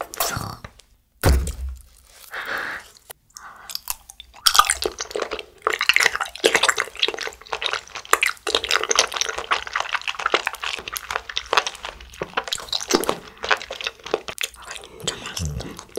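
Close-miked wet chewing of a grape-shaped green-grape-flavour jelly ball: a soft thump about a second in, then from about four seconds in a dense run of squishy, smacking mouth sounds that goes on until near the end.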